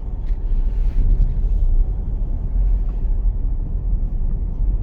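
Steady low rumble of a car driving, with road and engine noise heard inside the cabin.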